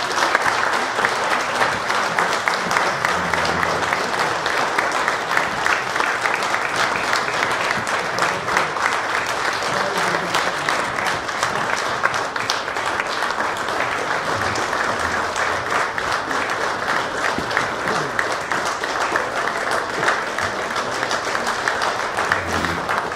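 A roomful of people applauding steadily, the sustained clapping of a standing ovation.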